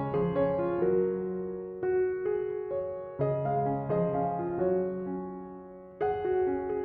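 Background music: gentle solo piano playing slow chords and melody notes.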